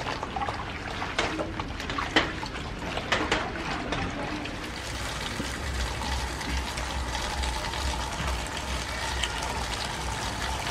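Tap water running into a plastic basin of leafy greens in a stainless steel sink. For the first few seconds hands swish and splash through the greens in the water, then the stream runs on steadily into the filling basin.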